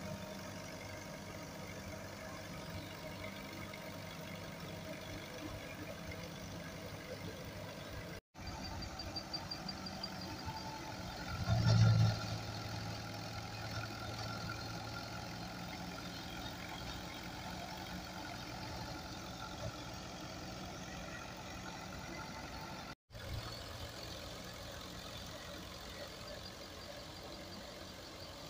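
Fiat 640 tractor's diesel engine running steadily under load, driving a threshing machine through its PTO shaft, with the thresher churning along. There is a brief louder surge about twelve seconds in.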